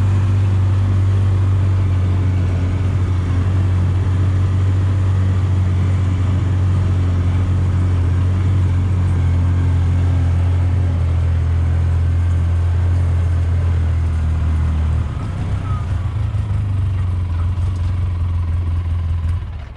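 Engine of a Polaris Ranger side-by-side running steadily as it drives along, a loud low drone. About fifteen seconds in the drone drops a little lower as the vehicle eases off.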